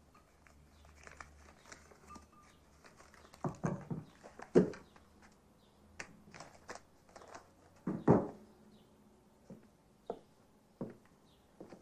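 Scattered soft knocks, taps and rustles in a small room, with two louder thuds about four and a half and eight seconds in.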